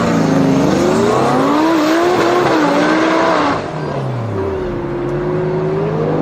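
Car engine revving, its pitch climbing and falling several times, then dropping back a little over halfway through and settling into a steadier note.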